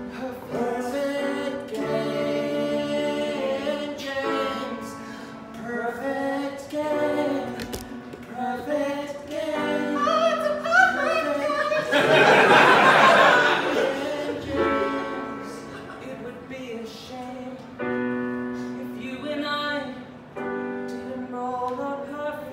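A man singing an improvised serenade over live keyboard accompaniment, with held, sliding sung notes over chords. About twelve seconds in, a loud burst of audience noise rises over the song for a couple of seconds.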